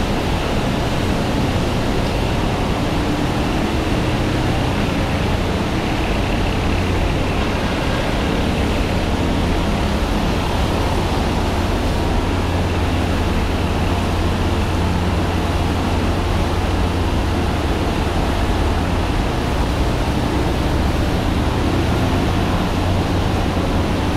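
Steady rumble and hiss of traffic on the elevated highway overhead, unbroken and even in level.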